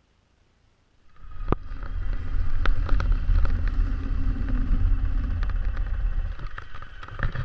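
A 2012 Ural Gear-up sidecar motorcycle's 750cc flat-twin engine running under way, starting abruptly about a second in after near silence, with scattered sharp knocks. The deep rumble eases off near the end.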